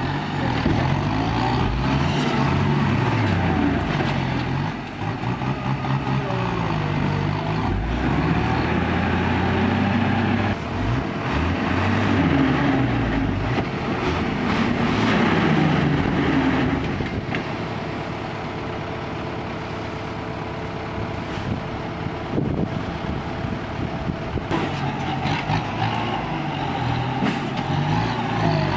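Ten-wheel dump truck's diesel engine revving up and down repeatedly as the truck tips its bed and strains in mud, with a few short sharp noises along the way.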